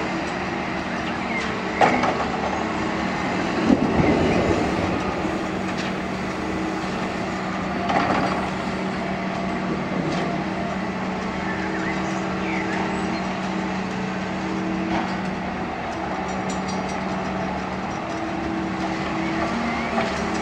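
Volvo wheeled and crawler excavators working: diesel engines running steadily under load with hydraulic whine. Several thuds and a rush of soil, about two, four and eight seconds in, as a bucketful of earth is dumped into a tipper truck's bed.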